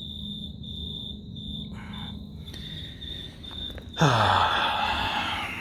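Crickets chirping in a high, pulsing trill. About four seconds in, a sudden loud rushing noise with a low tone falling in pitch cuts in and fades over a second and a half.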